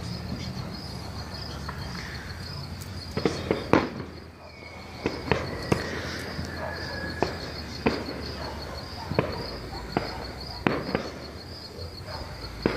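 Aerial fireworks bursting and popping in an irregular string of sharp bangs, a quick cluster about three seconds in with the loudest crack near four seconds, then scattered single pops. Behind them, insects chirp in a steady fast-pulsing high trill.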